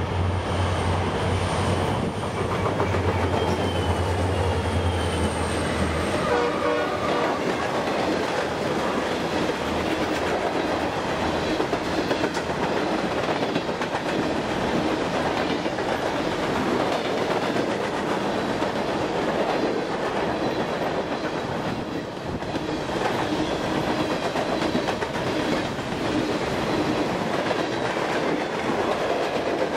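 A CSX coal train's diesel locomotives, mostly EMD SD40-2s with an SD70ACe, approach and pass at speed. A low engine drone fades after about six seconds. It gives way to the steady rumble and clickety-clack of coal hoppers rolling over the rail joints.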